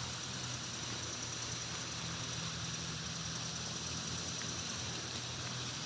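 Flowing creek water: a steady, even rushing hiss.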